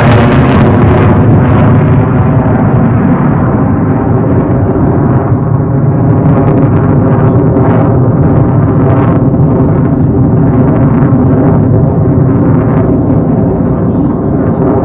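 Military jet fighter's engine roaring past as a loud, deep rumble. The high hiss drops away in the first second, leaving a steady low roar as the jet moves off.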